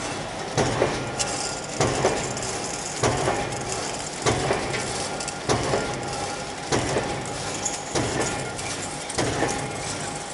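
A 400-ton H-frame high-speed press stamping motor stator laminations: a sharp, heavy knock about every 1.2 seconds, often doubled, over the steady running hum of the line.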